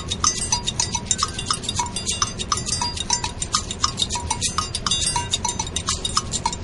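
Background music with a fast, clattering percussion beat of short, bright strikes and pitched pips, several per second, over a low steady rumble.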